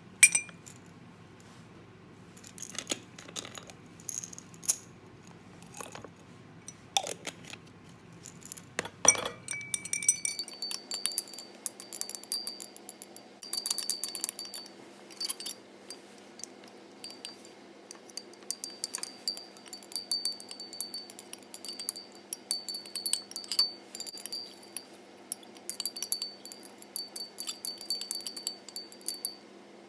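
Glass stirring rods clinking against the walls of glass beakers as a solution is stirred. Sparse clinks at first; from about ten seconds in they come quick and dense, with a faint high ringing.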